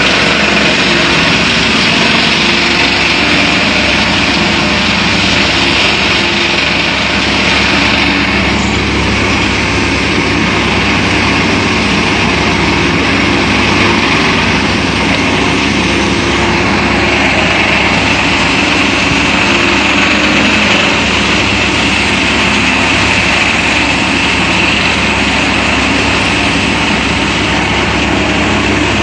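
Paddy thresher running steadily: a loud, continuous machine noise that does not let up.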